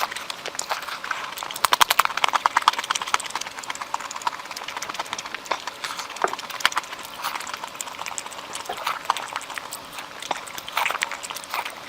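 Close-miked wet chewing and lip smacking of a person eating with their mouth open: a steady run of rapid sticky clicks, with quicker trains of smacks about two seconds in.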